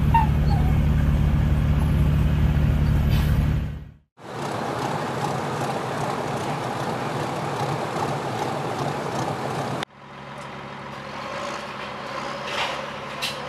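Military cargo truck's diesel engine running loud and close. About four seconds in, after a sudden cut, it gives way to a steady rushing noise from a bridge erection boat on the river. Near ten seconds, after another sudden cut, a bulldozer's engine runs more quietly with a steady hum.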